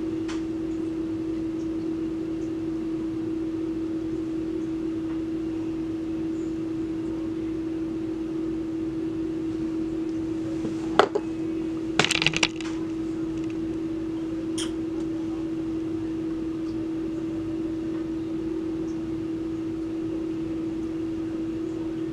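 Steady background hum with a constant low tone, broken by one sharp click about halfway through and a short clatter of small clicks a second later.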